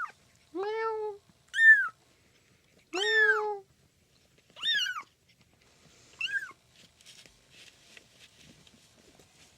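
A cat meowing five times in quick succession: some calls lower and longer, others higher and shorter, each rising then falling in pitch. After the last call come faint scratchy rustles.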